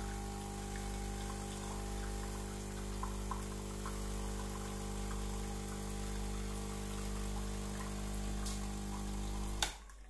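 De'Longhi espresso machine's vibratory pump humming steadily as it pushes citric acid descaling solution through the brew head, with liquid running into a glass. It cuts off with a click near the end.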